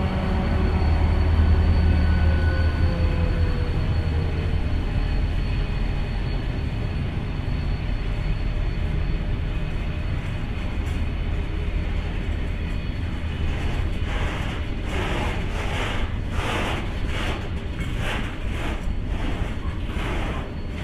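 Renfe class 333.3 diesel-electric locomotive passing at the head of a container train: its low engine hum and a tone dropping in pitch fade over the first few seconds. The steady rumble of container wagons rolling by follows. From about two-thirds of the way in, the wagon wheels clatter over the track in a regular beat, roughly twice a second.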